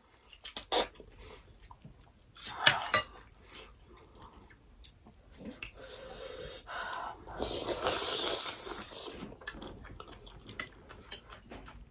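Noodle soup being eaten close to the microphone: loud slurps of noodles, a long one late on, with chewing and sharp clicks of metal forks and spoons against the plates.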